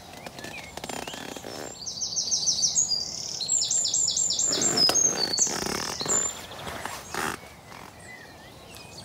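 A small songbird singing close by: a loud run of rapid, repeated high notes lasting about four seconds, with some rustling noises around the middle.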